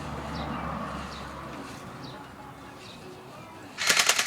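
Birds chirping in the background, then near the end an electric toy Uzi BB gun starts firing a rapid fully automatic burst of sharp clicking shots.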